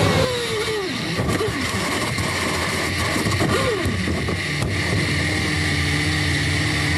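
Onboard sound of a 2013 Ferrari Formula One car's 2.4-litre V8 as it crashes: the revs fall away in several quick downward sweeps while the car skids off, with a sharp knock about four and a half seconds in. The engine then settles to a low, steady running note over a constant hiss as the car comes to rest.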